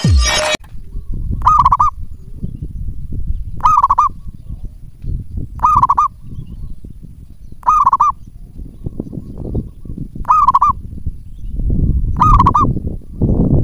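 Zebra dove (perkutut) cooing: six short warbling coos about two seconds apart, over a low rumbling noise.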